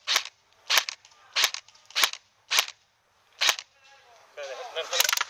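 Airsoft replica firing six single shots, each a sharp pop, spaced a little over half a second apart. Near the end comes a quicker cluster of pops.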